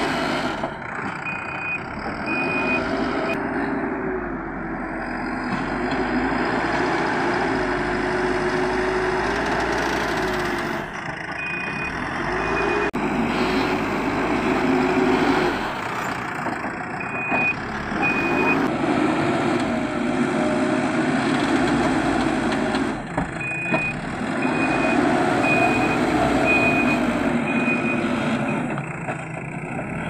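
Manitou backhoe loader's diesel engine revving up and settling back again and again as it works the front bucket and shuttles back and forth. Its reversing alarm beeps in several short runs of evenly spaced high beeps while it backs up.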